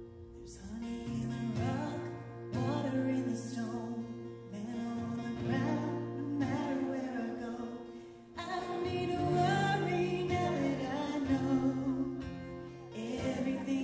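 A woman singing a worship song in phrases, backed by a live band of acoustic guitar, electric guitar and bass.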